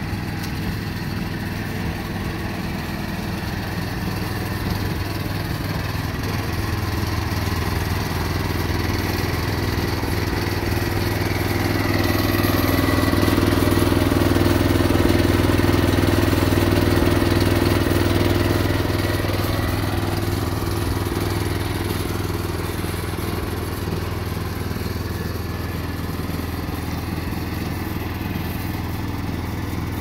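Gasoline engine of a Bobcat 371 skid steer running steadily, growing louder from about a third of the way in and easing back after about two thirds.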